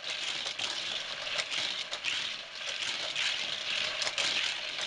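Hot Wheels battery-powered track booster whirring as small diecast toy train cars are shot through it and rattle around a plastic track, with many short clicks.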